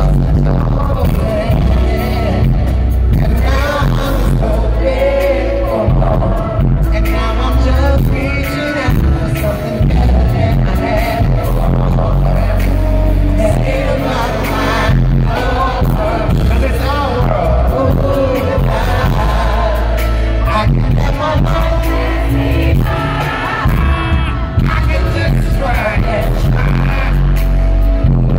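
Live R&B concert: a male singer singing into a microphone over band music with heavy bass through the PA, heard from the crowd.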